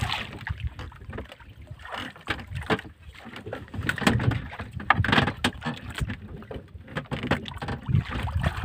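Sea water slapping against the hull of a small wooden outrigger boat, with irregular splashes and knocks, the strongest around four and five seconds in, while a handline is hauled in by hand.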